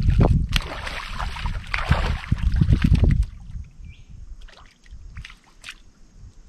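Splashing and sloshing in shallow water as an angler wades in and handles a freshly caught fish at the water's edge. The splashing is heavy for about three seconds, then drops to lighter, scattered splashes.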